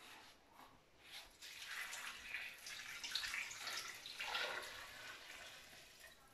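Water poured slowly from a plastic jug into a stainless steel pot of chopped vegetables, a splashing, trickling stream. It starts about a second and a half in and stops just before the end.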